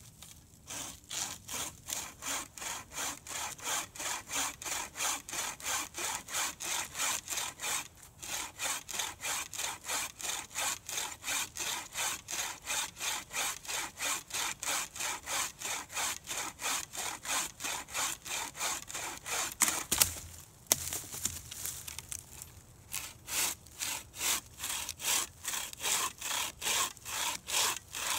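A hand saw cutting through a dead branch in steady back-and-forth strokes, about two or three a second. There is a brief pause, a couple of sharp cracks about two-thirds of the way through, a short lull, then the sawing starts again.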